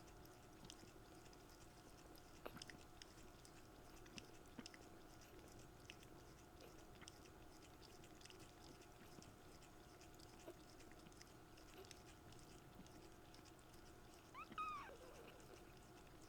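Faint small clicks and rustles of kittens shifting about, then near the end one short, high-pitched kitten mew that rises and falls in pitch.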